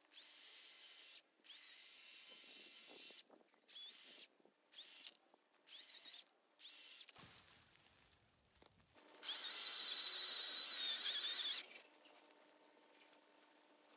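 Battery-powered chainsaw's electric motor whining in short trigger bursts, about six in a row, each spinning up to a high pitch. Then comes one longer, louder run with a wavering pitch, about nine seconds in.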